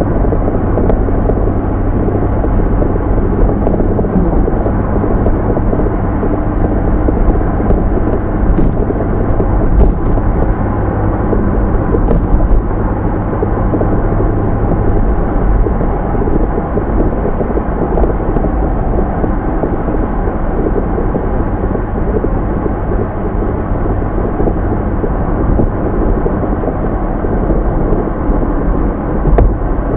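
Car engine sound effect: a loud, steady rumbling drone with a low hum underneath that thins out about halfway through.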